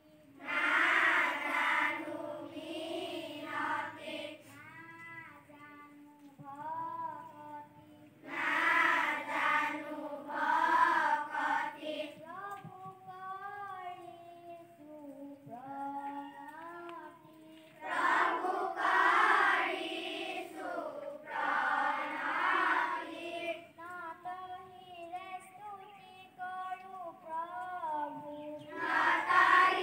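A large group of schoolchildren singing a prayer together at a morning assembly. Loud full passages alternate with quieter sung stretches, and the singing swells again near the end.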